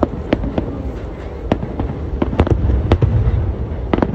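Aerial fireworks shells bursting in quick succession: about ten sharp bangs, irregularly spaced, over a low rumble.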